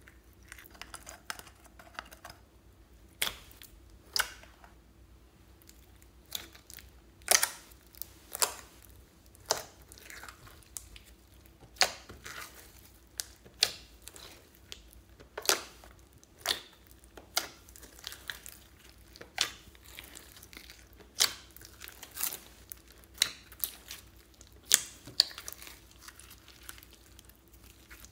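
Store-bought slimes being kneaded and folded together by hand in a glass dish, giving irregular sharp pops and clicks about once or twice a second.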